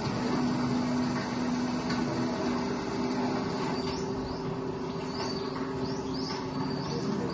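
A video installation's soundtrack playing in a gallery room: a steady low hum of two held tones, joined from about four seconds in by a run of short high chirps repeating about twice a second.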